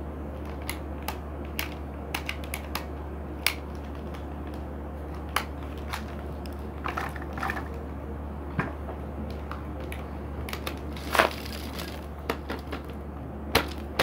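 Irregular sharp crunches and clicks of dry seed, husks and pellets being crushed, over a steady low hum. The loudest crunches come about eleven seconds in and again near the end.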